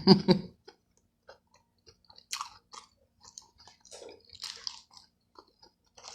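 A person chewing and biting food close to the microphone: irregular mouth clicks and short crunchy smacks, with a brief bit of talk at the very start.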